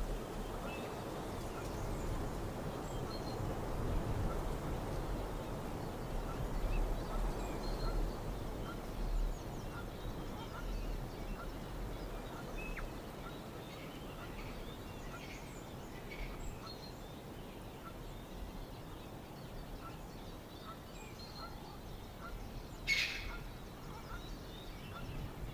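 Outdoor wind ambience: a steady low wind rumble that eases off after the first half, with scattered small bird chirps throughout and one louder, brief bird call near the end.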